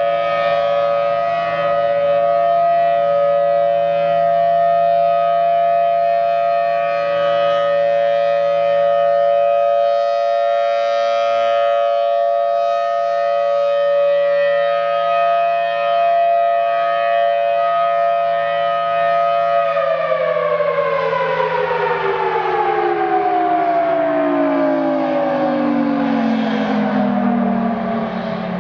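Federal Signal Thunderbolt 1000T tornado siren sounding a steady two-tone wail. About twenty seconds in it winds down, its pitch falling steadily until the end.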